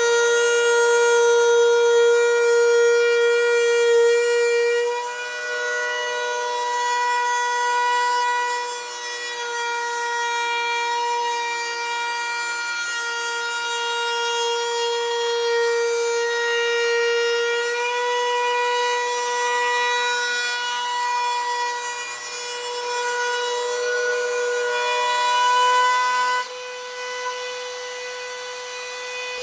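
Router on a guitar binding jig running at full speed, a loud, steady, high whine, as it cuts the binding channel along the edge of a guitar body. The level rises and falls as the body is fed past the bit, then drops suddenly near the end while the router keeps running.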